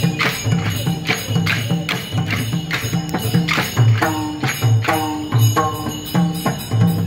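Traditional Newari dance music from a drum and cymbals playing a steady beat, about two to three strikes a second. Some ringing tones sound over the beat in the second half.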